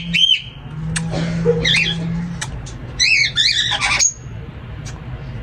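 Parrots squawking in harsh, arching calls: two near the start, a few around a second and a half in, and a quick run of them between about three and four seconds in.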